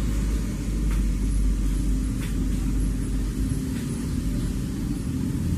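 Steady low rumble of road traffic, easing about three and a half seconds in, with a few faint clicks over it.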